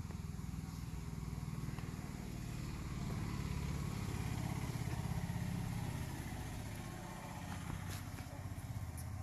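A motor vehicle engine running, low and pulsing, swelling to its loudest around the middle and fading away near the end, as a vehicle going past does.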